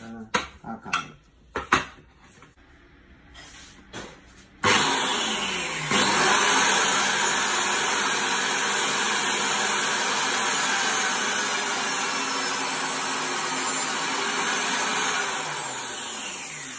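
A few knocks as a Ryobi biscuit joiner is set on the board, then its motor switches on about five seconds in, spins up and runs steadily and loudly while cutting biscuit slots into the board, winding down near the end.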